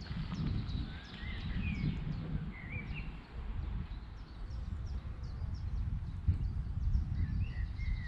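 Wind rumbling on the microphone, with small birds chirping: a long run of quick high chirps a few times a second and a few twittering calls.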